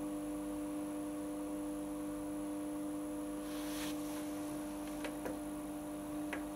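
Hotpoint Aquarius+ FDW70 dishwasher running mid-cycle with a steady electrical hum. A brief hiss comes a few seconds in, and a few light clicks follow near the end.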